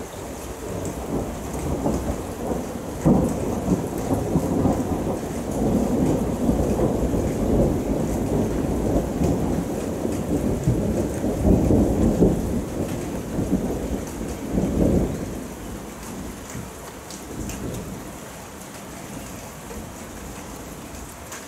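Thunder rolling in a long low rumble that swells through several peaks and dies away about sixteen seconds in, over steady rain.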